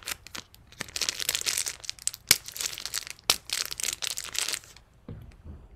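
Chocolate bar's paper wrapper crinkling and rustling as it is unwrapped and handled, with a couple of sharp crackles. It stops shortly before the end.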